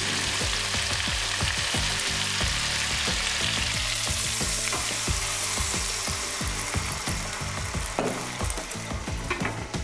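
Chicken wings and feet frying in hot oil in a pan, a steady sizzle with repeated knocks and scrapes as they are stirred. The sizzle eases toward the end.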